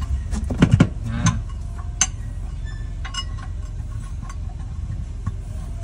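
A few knocks and clicks from the spare wheel and boot well being handled, bunched in the first second and a half with a sharper click at about two seconds, over a steady low rumble.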